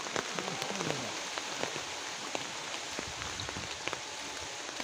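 Rain falling on a pond's surface: a steady, dense patter of drops.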